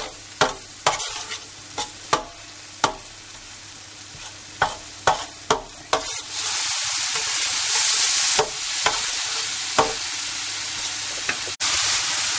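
Metal spatula scraping and knocking against a steel paella pan as a tomato-and-onion sofrito fries in olive oil. About halfway through, the frying sizzle becomes much louder and brighter and carries on, with the spatula clicks over it.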